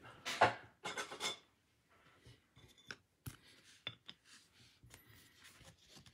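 Clear hard plastic card holder rubbing and scraping in the hands close to the microphone, twice loudly in the first second and a half, then lighter clicks and small scrapes as it is set down and cards are moved about.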